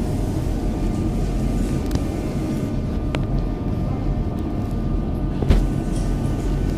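Steady low rumble of a metro station, with a faint even hum above it. A few sharp clicks cut through, the loudest about five and a half seconds in.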